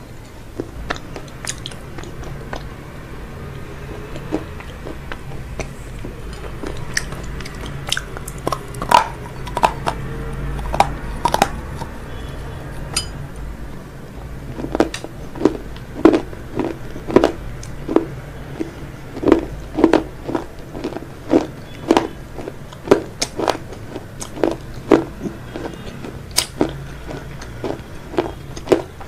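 Close-miked crunchy chewing and biting of fried food. Scattered sharp crunches come first, then steady rhythmic chewing at about one to two crunches a second through the second half.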